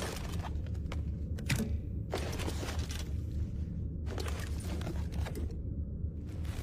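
Handling of a compound bow and arrow: several bursts of short clicks, scrapes and rattles a second or two apart, with one sharper click about a second and a half in, over a steady low hum.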